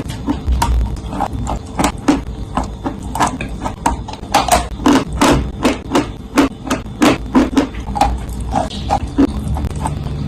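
Close-up crunching of dry edible clay being bitten and chewed: a steady run of crisp cracks, several a second, over a low rumble.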